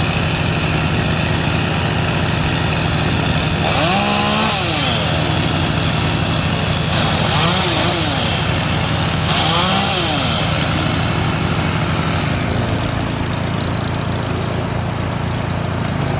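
A gas chainsaw revving up and back down three times over the steady drone of a running engine.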